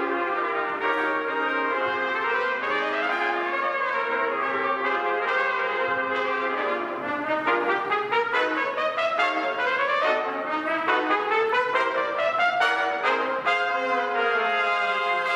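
Small trumpet ensemble playing live: quick tongued notes and rising runs passing between the parts.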